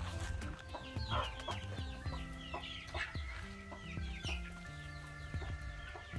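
Chickens clucking, with short high falling calls in clusters about a second in and again near four seconds, over background music with held notes.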